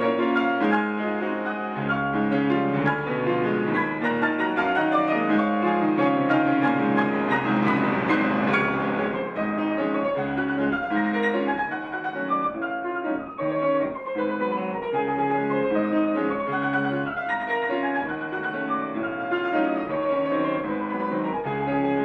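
Solo grand piano playing a dense classical passage of chords and runs, with a loud flurry of high notes about seven to nine seconds in.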